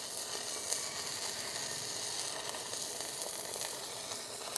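Arc of a Sanjoe stick (MMA) welder burning a 4 mm electrode at its maximum current of about 250 A: a steady sizzling crackle. The welder finds the arc too strong at this setting.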